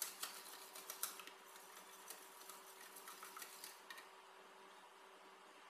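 Wire whisk clicking rapidly and unevenly against the inside of a metal saucepan as it stirs a liquid. The clicking stops about four seconds in.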